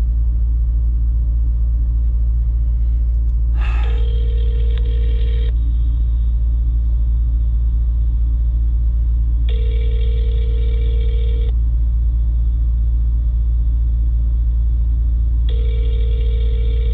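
Smartphone ringback tone of an outgoing call: three two-second rings at a steady pitch, spaced about four seconds apart, the first about four seconds in and the last near the end. A steady low rumble runs underneath.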